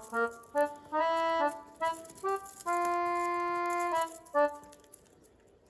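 A short instrumental tune on a reedy wind instrument: a few quick notes, one long held note, then a last short note, after which the music stops about three-quarters of the way through.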